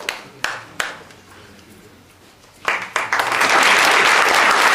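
Audience applauding. The clapping dies away to a few last claps, there is a short lull, and then dense applause breaks out again about two and a half seconds in.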